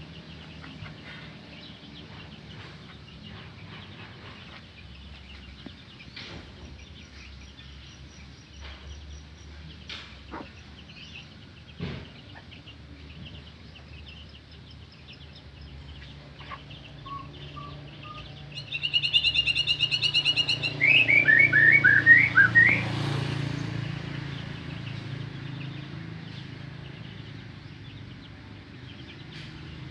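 White-rumped shama (murai batu) singing: faint scattered notes for most of the time, then a loud burst of song about two-thirds of the way through, a rapid trill followed by a quick run of falling notes, lasting about four seconds.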